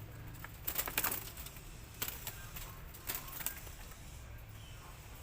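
Several short bursts of clicking and clattering. The densest cluster comes about a second in, and smaller ones come around two and three seconds in.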